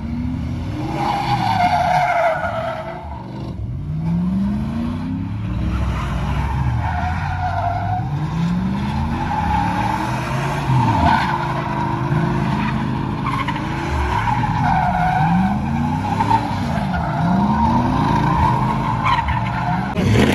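Pickup truck doing donuts: the engine revs up and falls back again and again, every second or two, while the rear tires squeal and skid without letup.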